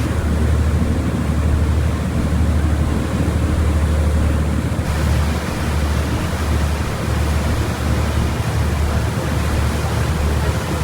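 Wind buffeting the microphone in uneven gusts over a steady rushing of water.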